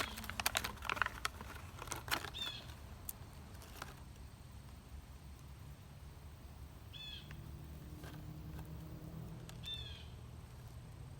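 A few seconds of MRE packaging crinkling and clicking, then a bird chirping in three short bursts of quick, falling notes spread across the rest of the stretch.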